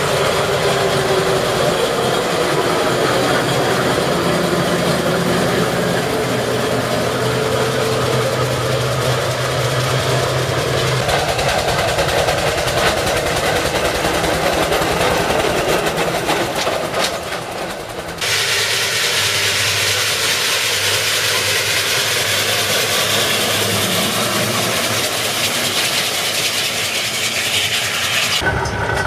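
Steam traction engines and a steam wagon running along a road, their engines working and wheels rolling. The sound changes abruptly about two-thirds of the way through and again near the end, where one shot cuts to the next.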